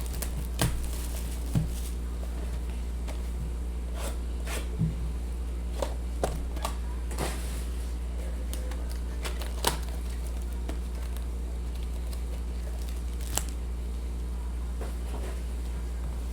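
Scattered crinkles, rustles and clicks of trading-card packs and cards being handled and opened, over a steady low hum.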